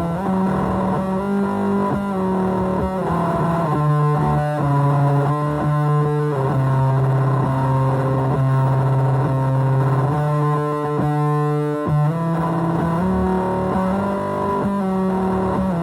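Electric guitar played through a fuzz pedal based on the Devi Ever Hyperion circuit: distorted notes and chords, each held with long sustain before the next.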